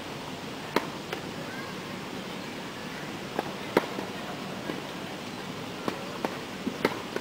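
Tennis ball being struck by a racket and bouncing on the court during a feeding drill: sharp pops, often in pairs a few tenths of a second apart, the loudest about a second in and near four seconds in, with a cluster of four near the end.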